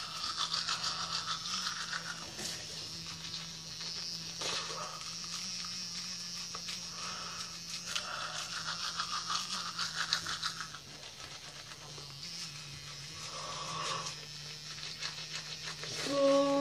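Manual toothbrush scrubbing teeth through a mouthful of soap lather, a wet, uneven brushing hiss over a steady low hum. Near the end a short vocal sound from the brusher is the loudest part.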